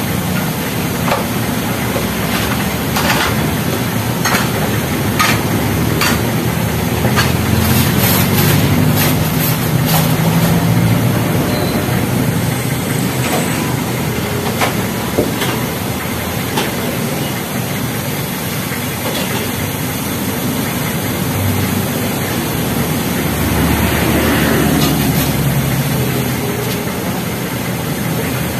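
Steady rumble of street traffic, swelling twice as vehicles pass, with scattered sharp clinks and knocks.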